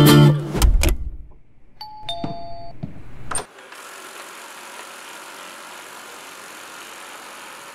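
Guitar music cuts off at the start, and a two-note falling chime sounds about two seconds in. From about three and a half seconds in comes the steady, even running noise of a eufy RoboVac 11S robot vacuum.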